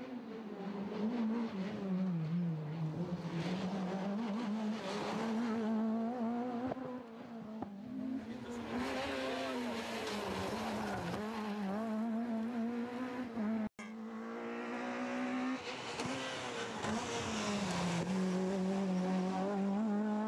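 Talbot Samba rally car's engine driven hard at high revs, the note rising and falling as the driver lifts, brakes and accelerates through corners. About two-thirds of the way through there is a sudden brief break before the engine comes back.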